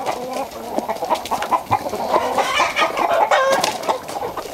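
A flock of domestic chickens clucking, many short overlapping calls throughout.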